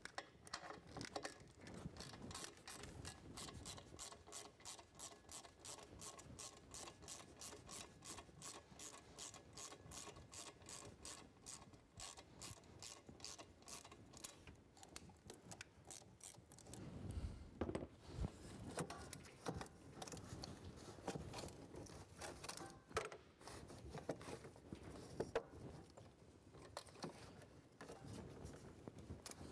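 Faint, rapid, even clicking of a ratchet turning the hose clamps on the intercooler pipe loose. From about 17 seconds in, it gives way to irregular rubbing and knocking as the pipe and its rubber coupler are worked off the intake.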